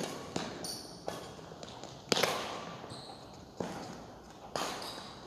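Badminton rackets striking the shuttlecock in a rally: sharp smacks at irregular intervals, each ringing on in the echo of a large hall, the loudest about two seconds in.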